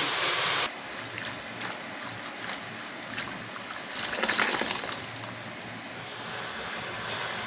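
Water poured from a vessel over chopped spring onion greens in a steel bowl, a running trickle and splash that swells about four seconds in. Under a second in, a loud hiss cuts off suddenly.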